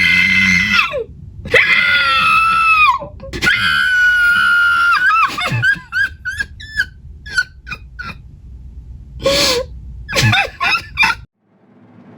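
A woman screaming in long, high wails that break into short sobbing gasps and whimpers, the sounds of a terrified captive. Her cries cut off suddenly near the end.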